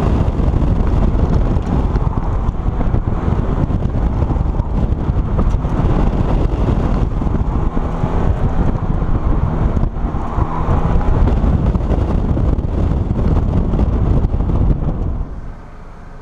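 Subaru BRZ's flat-four engine and tyres, driven hard through an autocross course, under heavy wind buffeting on the microphone. The sound drops away sharply near the end as the car slows.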